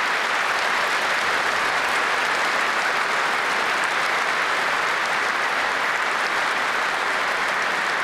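Sustained applause from a large seated audience: many hands clapping together in a dense, even wash that holds steady.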